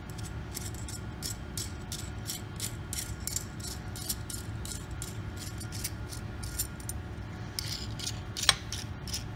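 Steel hex nut being spun by hand along a threaded lead screw: light, quick metallic clicks and rattles, several a second, with one sharper click near the end.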